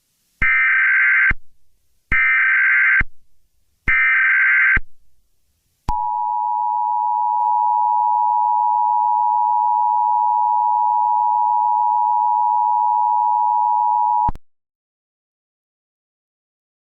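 Emergency Alert System signal: three short screeching bursts of digital header data, then the two-tone attention signal held steady for about eight seconds before it cuts off.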